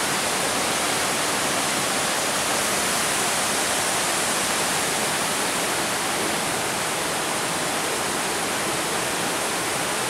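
Steady rushing of water from the stream and waterfall, an even hiss with no change in level.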